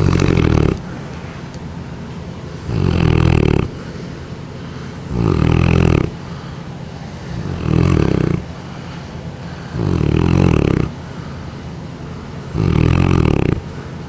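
A large Neapolitan Mastiff snoring pretty loud in deep sleep: six snores in a slow, even rhythm, about one every two and a half seconds, each lasting just under a second.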